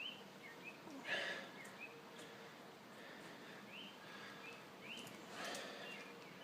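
Two short scraping sounds, about a second in and again near the end, as a knife trims the sticky tyre-plug strings off the tread, with small birds chirping faintly in the background.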